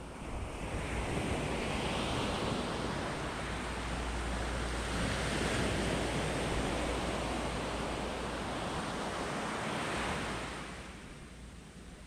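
Small waves breaking and washing up a sandy beach, the surf swelling about a second in and ebbing away near the end.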